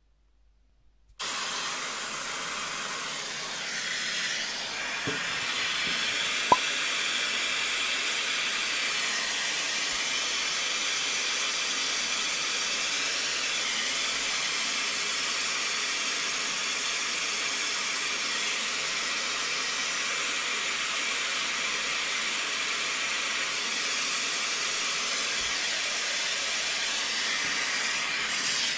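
Pink noise played through an iPhone 12 Pro Max's built-in speakers: a steady, loud hiss that starts abruptly about a second in. One sharp click about six and a half seconds in.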